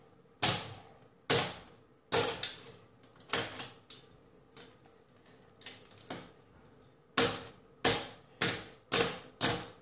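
Hard plastic clacks of a Lego-brick knife being handled, about a dozen sharp knocks, spaced out at first and coming about two a second near the end.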